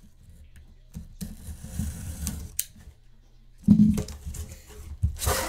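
A sealed cardboard box being cut and torn open by hand, with scraping and rustling of cardboard and packing, a sharp rip about two and a half seconds in, and a heavy knock of handling a little later.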